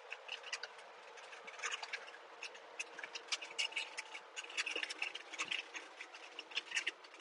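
Faint in-cab running noise of a 1995 Subaru Sambar mini truck accelerating uphill in fifth gear, a thin hiss with no low rumble, dotted with many small irregular clicks and ticks.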